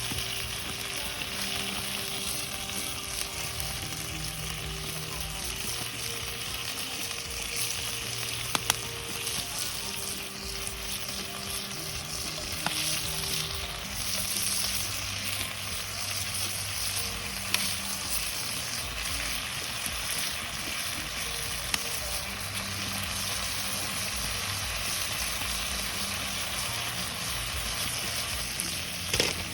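Food sizzling and frying in a hot pan, a steady hiss with a few light clicks.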